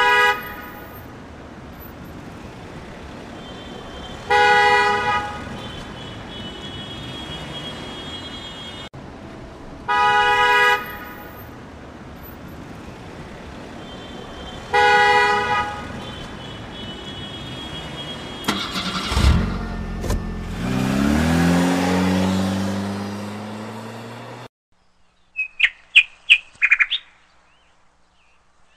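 Car horn honking four times, about a second each and roughly five seconds apart, over steady traffic noise. Then an engine revs up with rising pitch for about five seconds and cuts off suddenly, followed by a few short high chirps.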